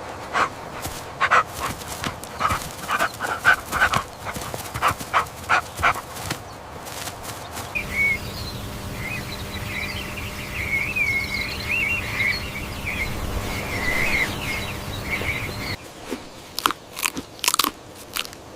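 Animal calls: a run of short, sharp yelps, then a warbling, chirping call for several seconds, then more short sharp calls near the end.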